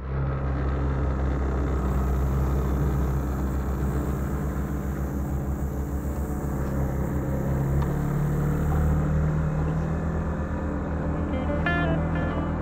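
Boat engine running steadily with an even, low hum.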